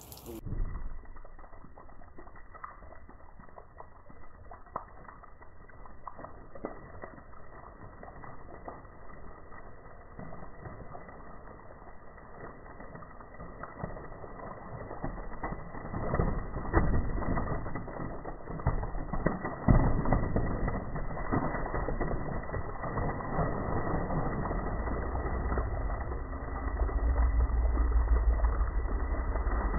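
Slowed-down audio of a Mentos-and-Diet Mountain Dew soda geyser erupting, heard as a deep, drawn-out rumble with scattered knocks. It grows louder about halfway through and is deepest near the end.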